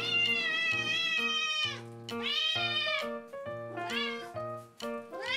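A domestic cat meowing loudly and insistently to be fed as its bowl of dry food is held up: four long meows, the first the longest.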